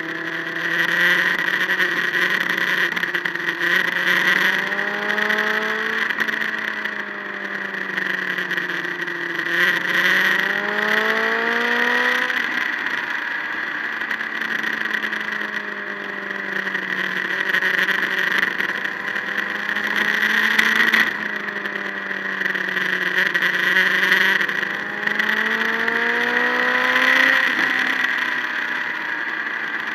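Motorcycle engine pulling through the revs, its pitch climbing for several seconds and then dropping sharply at each gear change, four times. Steady wind rush on the microphone runs underneath.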